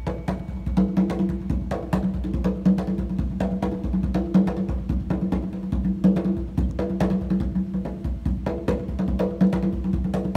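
A single conga drum played by hand in a fast, continuous rhythm of many strokes a second, the head ringing at one steady low pitch under the sharp attacks.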